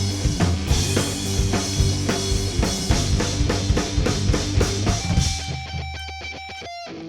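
Rock band instrumental break with drum kit, bass and guitar; about five seconds in the drums and bass drop out, leaving a quieter guitar picking even, repeated notes.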